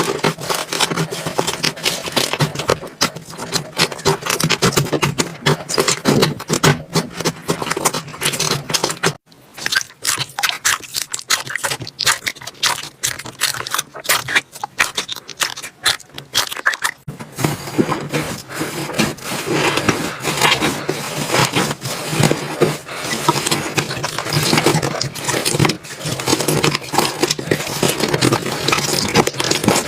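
Slime being worked by hand: dense crackling, clicking and squelching pops, with a sparser, quieter stretch about a third of the way in.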